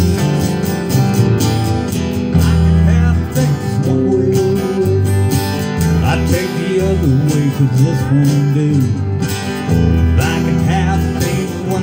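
Acoustic guitar strumming a country tune during a break with no sung words. A wavering melody line rises and falls over the guitar from about four seconds in to nine seconds in.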